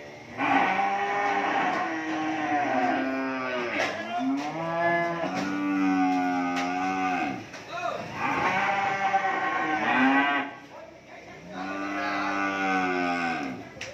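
Cattle mooing: four long, loud moos in a row, each two to three seconds long and dropping in pitch at the end.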